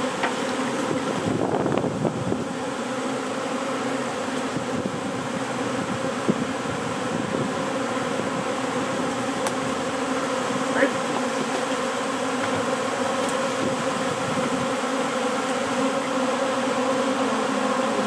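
A large honeybee swarm in flight: the steady, dense hum of many bees buzzing together in the air around the hive. A single short tap about eleven seconds in.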